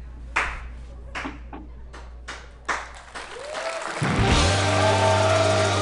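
Music-video soundtrack: a few separate sharp hits, then about four seconds in the rock band's music comes in loud and full, with sustained pitched parts over a heavy bass.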